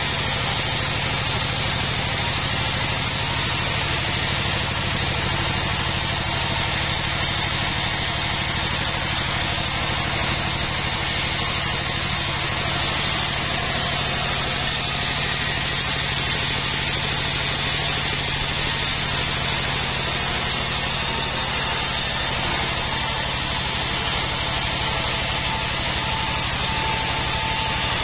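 Sawmill band saw running steadily with a hum while its blade rips a long mahogany board being fed through it.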